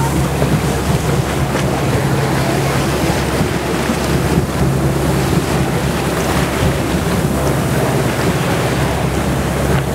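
Tour boat running steadily under way, its engine a low steady hum beneath the rush of waves against the hull and wind buffeting the microphone.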